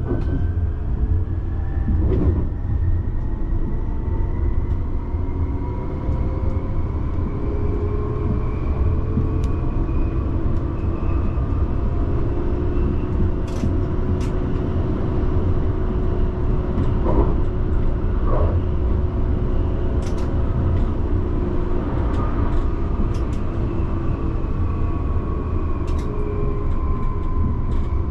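HTM RandstadRail light-rail tram running at speed: a steady rumble of wheels on rails under an electric motor whine. The whine climbs in pitch early on and falls again near the end as the tram slows for the next stop. A few sharp clicks come through over it.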